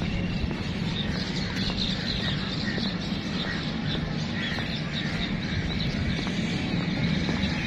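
Outdoor ambience of birds chirping over a steady low rumble.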